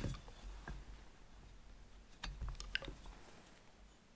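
Faint, scattered clicks and light scrapes of a screwdriver and screw as a frog screw is threaded by hand into a hand plane's cast-iron body, with a sharper click at the start and a couple more a few seconds in.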